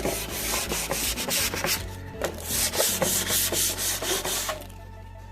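Sandpaper rubbing over a glossy cabinet finish in repeated uneven strokes, scuffing off the shine so the primer and paint will stick. The sanding stops about four and a half seconds in.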